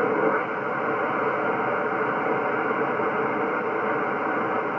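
Steady static hiss from a Yaesu HF transceiver's speaker in upper sideband, as the tuning knob is turned down across the 10-metre band with no station coming through.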